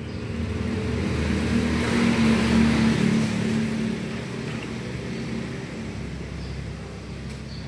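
A motor vehicle engine passing by, growing louder for about two seconds and then slowly fading away.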